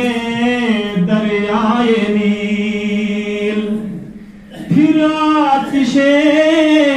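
A man singing a hamd (a devotional Urdu poem praising God) solo and unaccompanied into a microphone, in long drawn-out, wavering notes. He pauses briefly for breath about four seconds in, then comes back in on a higher note.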